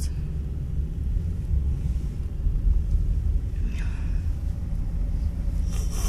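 Steady low rumble inside a car's cabin as it drives through a snowstorm: engine and road noise.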